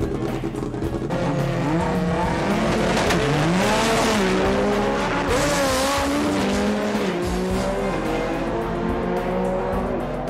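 Import drag-race car's engine revving hard, its pitch rising and falling, with tyre squeal, over background music.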